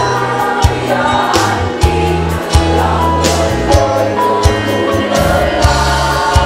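Women's choir singing a march song in unison, over an accompaniment with a low bass line and a steady drum beat.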